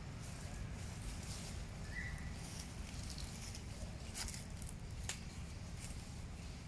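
Outdoor forest ambience: a steady low rumble under faint crackling of dry leaf litter, with two sharp clicks a second apart past the middle. A short high chirp comes about two seconds in.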